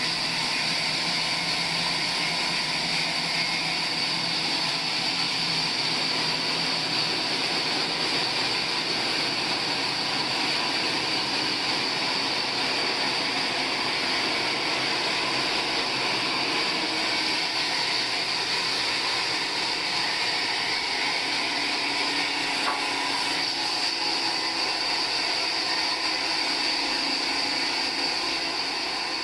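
Sawmill saw running steadily with a high-pitched whine, with no pause or change in pitch.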